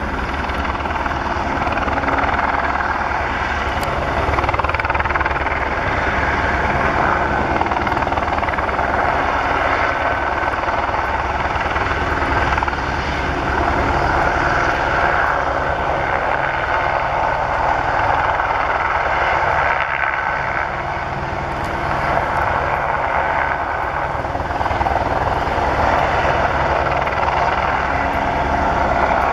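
Eurocopter AS 550 C2 Fennec helicopter in flight: steady rotor chop under a continuous turbine and rotor noise, easing slightly about two-thirds of the way through.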